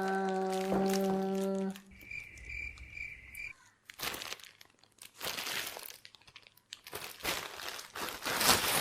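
A steady held tone cuts off near the start, a short faint pulsing chirp follows, and then the packaging of a cardboard box is torn and crumpled open in repeated rustling bursts.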